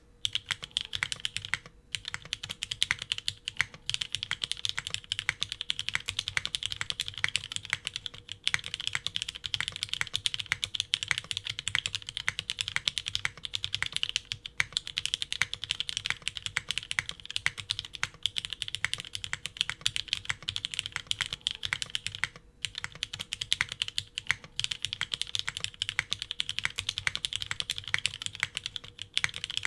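Continuous fast typing on a Glare TKL mechanical keyboard with vintage Cherry MX Black linear switches, a polycarbonate half plate and GMK doubleshot ABS keycaps: a dense run of key clacks broken by a few brief pauses.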